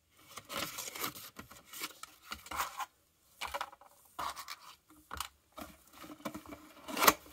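Paper instruction sheet and cardboard packaging being handled, rustling and scraping in irregular bursts, with one sharper, louder sound near the end.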